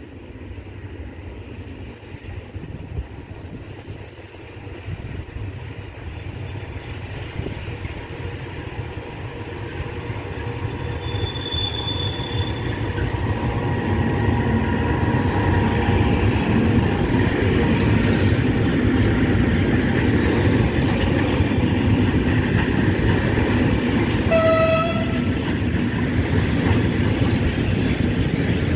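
FS E652 electric locomotive hauling a container freight train, approaching with a rumble that grows steadily louder, then passing close by with a loud, steady roll of wagon wheels over the rails. A brief high-pitched tone sounds once about three-quarters of the way through.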